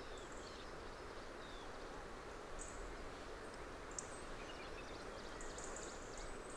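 Faint natural outdoor ambience: a steady soft hiss with a few short, very high-pitched chirps, two spread apart and a small cluster near the end.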